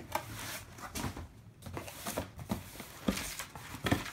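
Cardboard shoebox being handled and opened, with paper rustling and several light knocks of cardboard; the loudest knocks come near the end.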